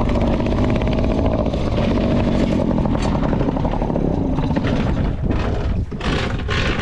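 Small 3.3-horsepower outboard motor running steadily, pushing the boat along. About five seconds in its even running gives way to rougher, uneven noise.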